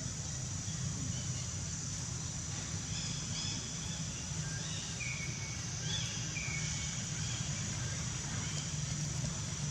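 Outdoor ambience: a handful of short, high chirps over a steady high hiss and a low, steady rumble.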